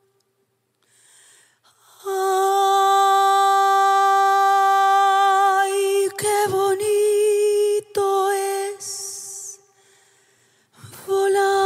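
Music: a woman's voice holding long sung notes with a slight vibrato, unaccompanied. It starts about two seconds in, breaks off briefly several times, pauses near the end and comes back.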